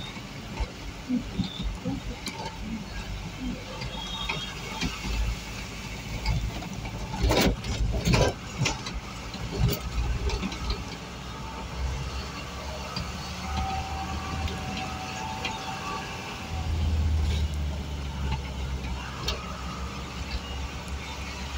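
A vehicle driving slowly on a rough road, heard from inside the cab: a steady low engine and road rumble with a few sharp knocks and rattles about seven to eight seconds in. The rumble gets louder in the last few seconds.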